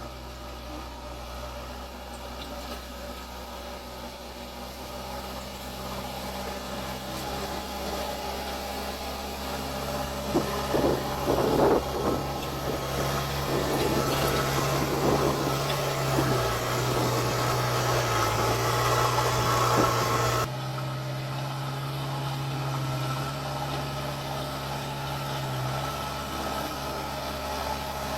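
JCB 3DX backhoe loader's diesel engine running steadily, its pitch rising and falling a little as it works. Louder irregular knocks and scrapes come through the middle.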